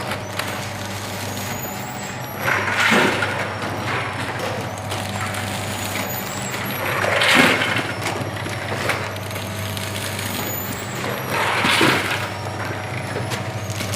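Food packaging machine running with a steady hum, broken by a loud hiss-like burst about every four and a half seconds as it cycles, three times here.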